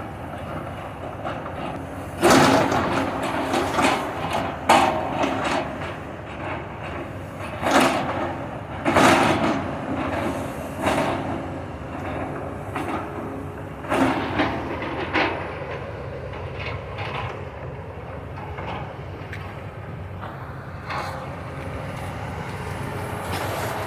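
Building demolition: a machine's engine running steadily under a string of crashes and scraping as debris is torn down and falls. The loudest crashes come about two, five, eight, nine and fourteen seconds in, and it quietens after about sixteen seconds.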